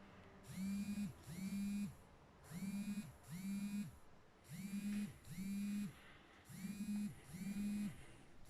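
Garrett AT Gold metal detector sounding its target tone over a piece of jewellery, eight steady beeps in pairs about every two seconds.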